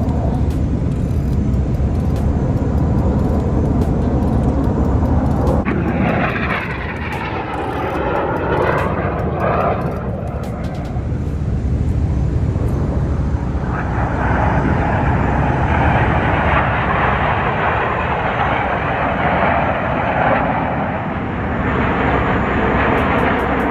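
Fixed-wing aircraft flying past with its engines running loud, the sound sweeping in pitch about six to ten seconds in and swelling again from about fourteen seconds in.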